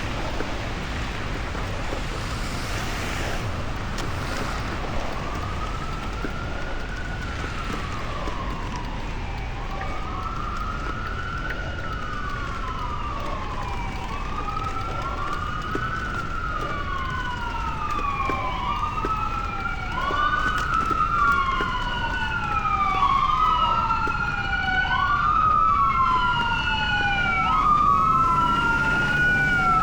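Emergency vehicle siren wailing, each slow rise and fall about two seconds long, coming in about five seconds in and growing louder; in the second half the sweeps overlap one another. Under it runs a steady low rumble of street noise.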